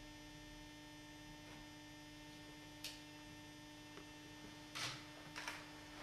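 Steady low electrical mains hum over near silence, with a faint click about three seconds in and two brief faint scrapes near the end.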